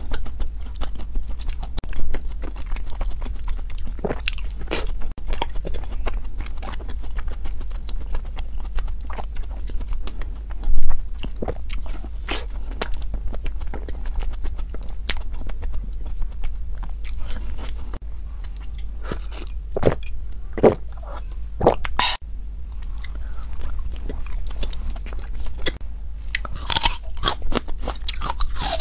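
Close-miked biting and crunchy chewing of a frozen ice cream bar: irregular crisp crunches and wet mouth sounds, the loudest bite about a third of the way in, over a low steady hum.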